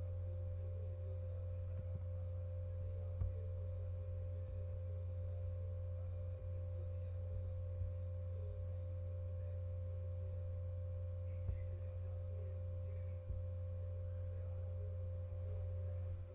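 Steady low electrical hum on the recording, with a fainter steady higher tone above it. A few soft mouse clicks sound in the middle and later part.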